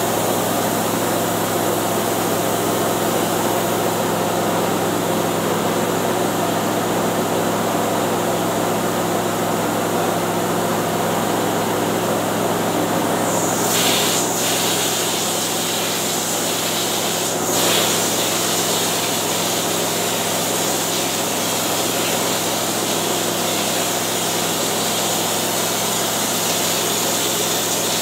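Air compressor running steadily with the hiss of air through a texture hopper gun. About halfway through the hiss turns brighter as the gun sprays texture onto the ceiling, with two short louder spurts a few seconds apart.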